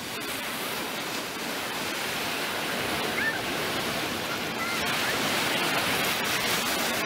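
Ocean surf washing and breaking on a sandy shore, a steady rushing hiss that builds gradually louder.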